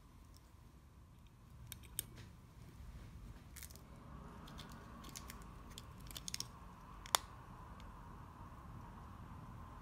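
Faint scattered clicks and small taps from handling a tiny silver-oxide watch battery and tweezers at the watch movement, with one sharper click about seven seconds in, over a low steady background rumble.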